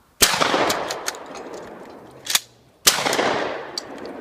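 Two shotgun shots at flying clay targets, about two and a half seconds apart, each followed by a long echoing roll. A shorter, sharper crack comes just before the second shot.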